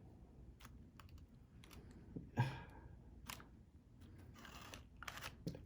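Faint scattered clicks and taps from a smartphone being handled and its buttons pressed as it is switched on, with one brief louder sound about two and a half seconds in.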